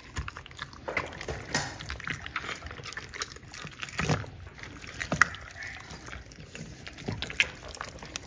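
Wet squelching and sticky peeling of raw chicken meat and skin as fingers work them loose from the carcass, with irregular small clicks and smacks.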